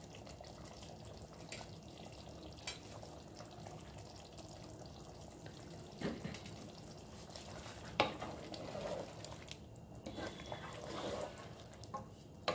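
Spatula stirring a thick chicken curry in a pot over a low sizzle, with soft scraping and a few knocks against the pot, the sharpest about eight seconds in.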